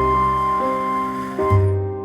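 Background music: soft piano or keyboard notes held and changing about every second and a half.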